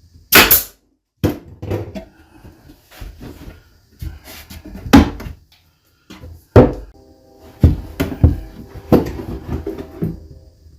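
Sharp wooden knocks and bangs as plywood cabinet panels are handled and fitted together. About half a dozen loud strikes come a second or more apart, with lighter knocks between them.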